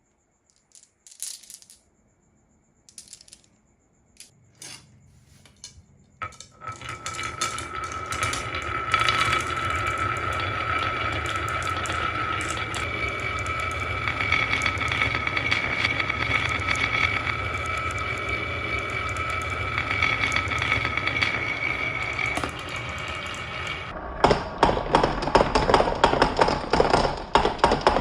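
Marbles on a marble run: a few scattered clicks at first, then from about six seconds in many marbles rolling together in a steady rumble with a ringing tone, breaking near the end into a dense clatter.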